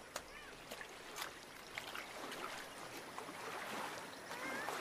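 Water trickling and lapping, with small splashes and clicks and a few faint high chirps near the start and near the end.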